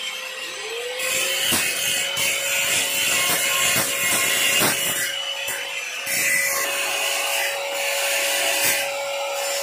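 A power tool's motor spins up to a steady hum about half a second in and keeps running, with rough hissing and scraping noise and irregular sharp strokes over it.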